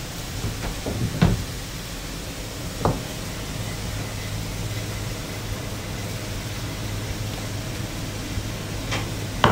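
A plastic rolling pin rolling out pizza dough on a worktop, knocking against the counter a few times: about a second in, about three seconds in, and twice near the end. A steady low hum runs underneath.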